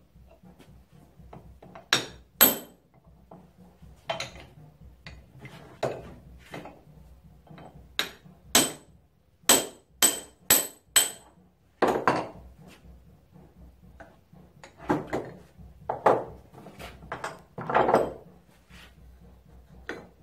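Sharp metal-on-metal taps with a bright ring, as the wrist pin is knocked out of an antique engine's piston and connecting rod; the loudest come as a quick run of about six taps a little under halfway through. Duller knocks and rattles of the metal parts being handled follow.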